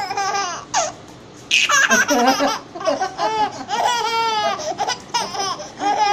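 A baby laughing in high-pitched bursts, with a short pause about a second in, then a quick run of short laughs.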